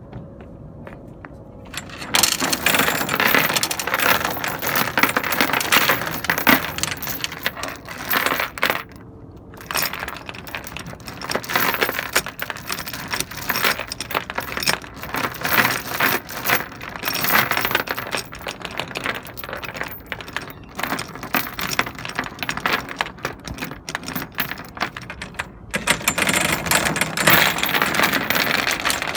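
Steel anchor chain (3/8-inch BBB) clinking and rattling as it is hauled by hand around a windlass gypsy and piled on deck. The clatter starts about two seconds in and comes in bursts with short pauses.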